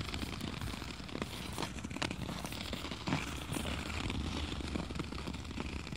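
Ice skate blades scraping and gliding over snow-dusted ice: a steady hiss broken by scattered small clicks and crunches.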